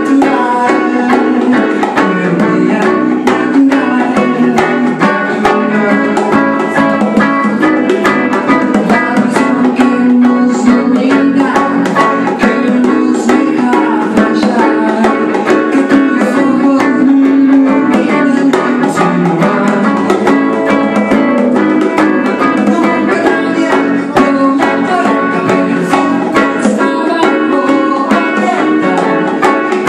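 Small live band playing: a single-cutaway electric guitar through an amplifier, a bass guitar and hand-played bongos, with quick, steady drum strikes.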